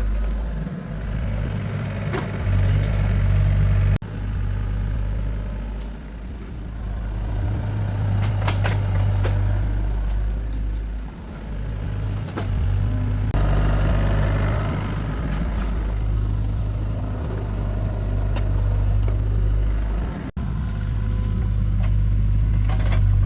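Excavator diesel engine running steadily with a strong low hum, with a few sharp knocks. The sound changes abruptly a few times between cut segments.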